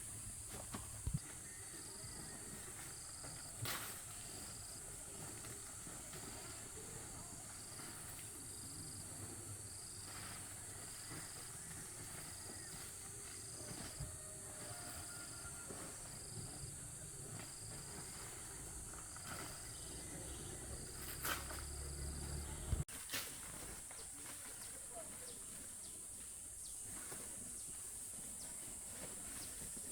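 Outdoor insect chorus: a steady high buzzing drone, with a short high chirp repeating a little more than once a second, which stops about three-quarters of the way through. A few sharp knocks stand out now and then as the loudest sounds.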